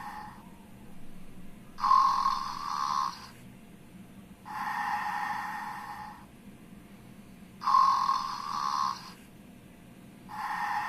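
Snoring in a slow, regular rhythm, a breath about every three seconds. Louder, harsher snores with a sharp start come about two and eight seconds in, alternating with softer, hissier breaths.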